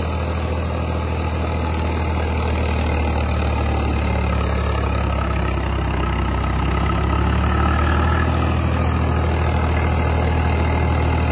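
Swaraj 855 tractor's three-cylinder diesel running steadily under heavy load, pulling a 9-foot rotavator whose blades churn through the soil. The engine holds its revs without dropping despite the deep, full cut.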